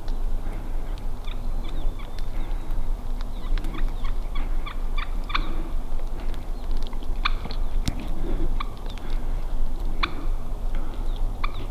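Wild turkey calling in several short runs of rapid, sharp notes, strongest about four to five seconds in and again around seven, ten and eleven seconds in, over a steady low wind rumble.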